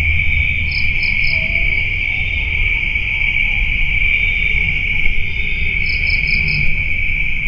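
Insects chirring steadily in a continuous high drone, with a short run of three quick higher chirps about a second in and four more near the end, over a low rumble.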